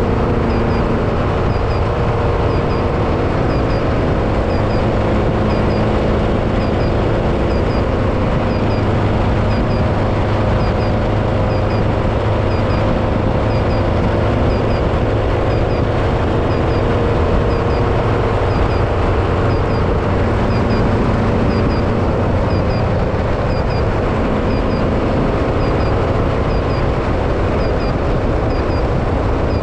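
Off-road race vehicle's engine running steadily, a continuous low drone with slowly drifting pitch. A faint high double chirp repeats about once a second over it.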